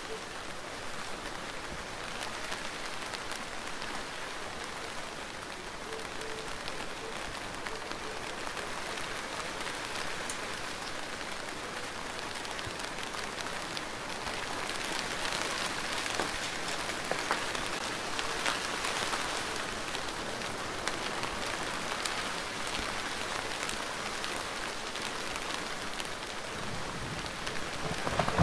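Steady rainfall, a continuous hiss dotted with the small ticks of individual drops, growing a little heavier about halfway through.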